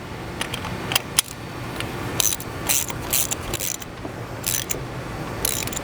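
Wrench work on the spring adjuster of a loading-arm torsion swivel: an irregular string of short metal clicks and clinks, over a steady low hum.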